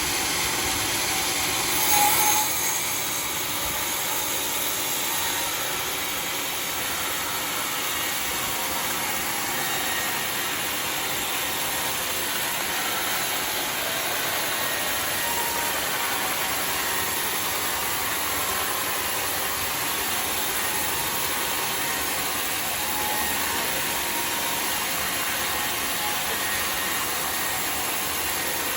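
Homemade sawmill running steadily with an even, hissing mechanical noise. A brief louder burst comes about two seconds in.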